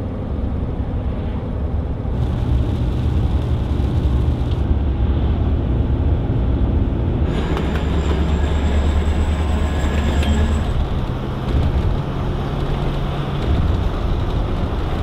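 Steady engine and road noise heard from inside the cabin of a moving vehicle, with a low hum that shifts in pitch a few times.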